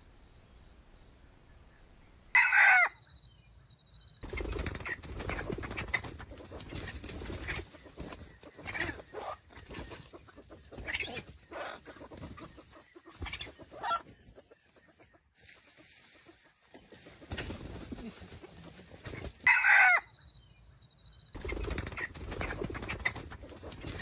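Red junglefowl rooster giving two short, loud crows, one just after the start and one about seventeen seconds later. In between, dry leaf litter rustles and crackles, with a few soft clucks.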